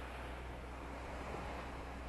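Steady wash of surf on the beach below, heard as an even, unbroken noise with a low rumble.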